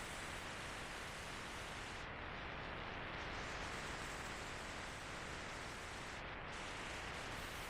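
Extreme wind noise buffeting a DJI Osmo Pocket's microphone on a moving electric bike going downhill: a steady, dense rushing hiss, whose highest part briefly drops away about two seconds and about six seconds in.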